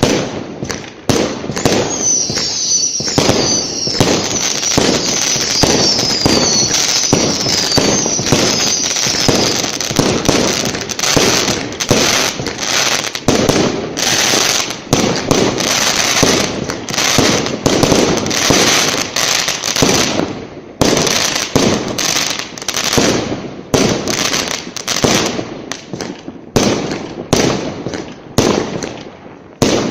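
Fireworks going off in a dense run of bangs and crackles, with several short falling whistles in the first third. The bangs come thickest in the middle and thin out near the end.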